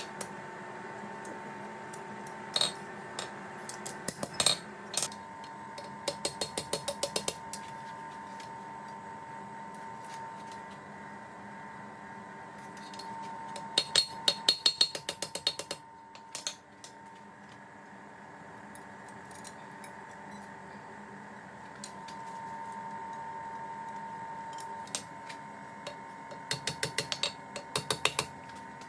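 Hammer striking metal in three quick runs of light blows, about five a second, with a few single taps between, over a steady hum.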